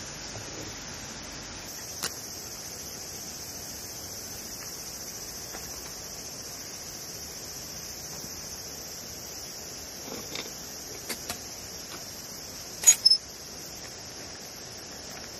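Steady, high chorus of evening insects, with a few short sharp clicks scattered through it; the loudest is a quick pair of clicks near the end.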